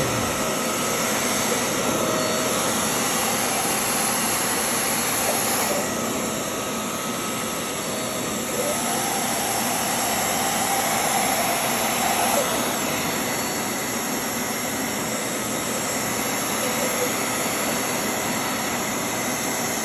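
Hoover Clean Slate portable carpet spot cleaner's suction motor running steadily while extracting a stain from carpet. Its tone shifts a few times.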